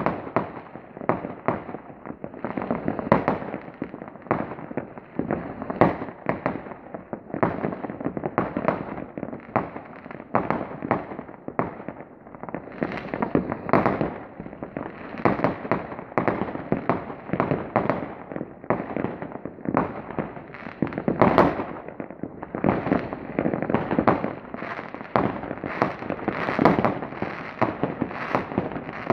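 Aerial fireworks bursting in a dense, unbroken barrage, many sharp bangs a second overlapping one another with no pause.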